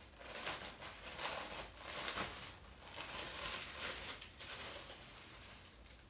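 Clear plastic packaging bag crinkling and rustling as a folded T-shirt is worked out of it by hand, in uneven rustles that fade out near the end.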